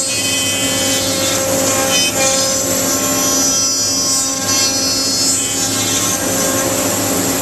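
SCM Record 120 CNC woodworking router running on a test, a steady high-pitched machine whine with several held tones over a rasping noise.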